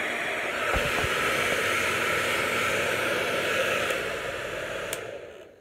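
Handheld hair dryer blowing steadily on wet hair. Near the end there is a click and the airflow rush dies away as it is switched off.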